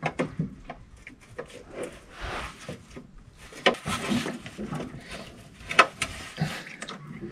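Sporadic clicks, knocks and rubbing as a 4L60E automatic transmission's oil pan is worked loose and down, catching on the exhaust pipe. The sharpest knock comes about six seconds in.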